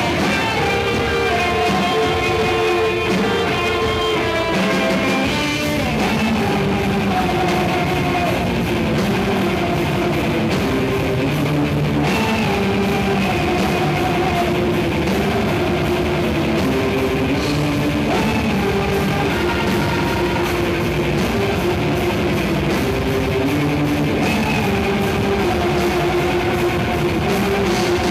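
Heavy metal band playing: electric guitars carrying melodic lines over a busy drum kit, continuous and loud.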